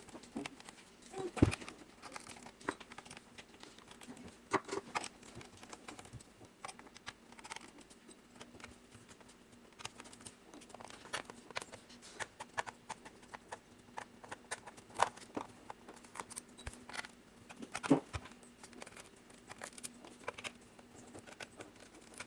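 Small Phillips screwdriver backing screws out of a laptop's plastic bottom case, with scattered light clicks and scrapes of the screwdriver, screws and plastic being handled.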